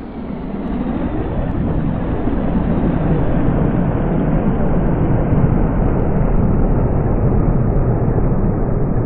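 Jet aircraft roar, a sound effect: a loud noisy rumble that swells over the first few seconds and then holds, its hiss slowly dulling as the jet passes.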